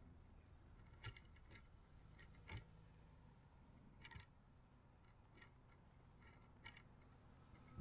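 Near silence, with a few faint, scattered clicks and ticks.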